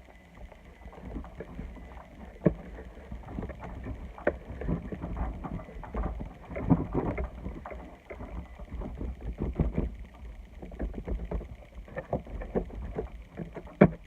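Hands kneading and poking through slime, making many small sticky clicks and pops at an uneven pace.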